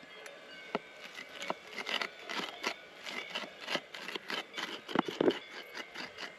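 A knife chopping on a wooden cutting board in short, irregular strokes, about two to four a second, with the loudest knocks about five seconds in.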